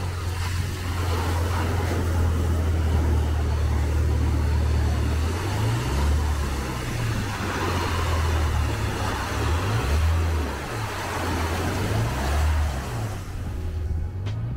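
Ocean waves breaking and washing over shoreline rocks, with loud wind rumble buffeting the microphone, steady at first and then gusting on and off from about five seconds in.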